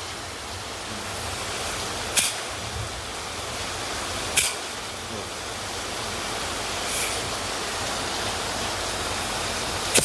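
Steady rain noise over a low hum from a refrigerator compressor that has just been jump-started and is running. Sharp clicks come about two, four and seven seconds in.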